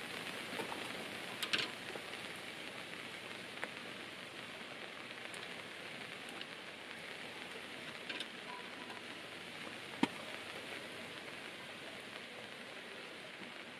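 Steady rain falling, with a few louder single drops, the sharpest about ten seconds in.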